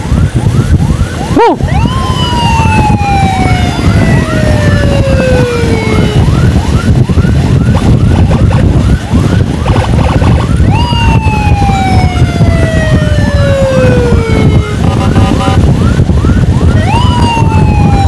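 Emergency sirens: a rapid chirping yelp repeating several times a second, with a long wail every six seconds or so that jumps up and then falls slowly. Underneath is a heavy rumble of motorcycle engine and wind.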